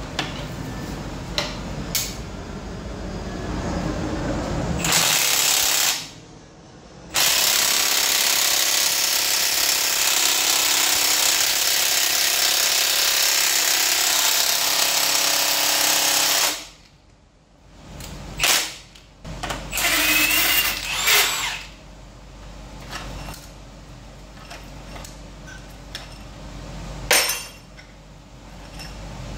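A power tool working on seized engine bolts: a short run about five seconds in, then after a brief pause a steady run of about ten seconds. Afterwards come a few short clinks and knocks of metal parts.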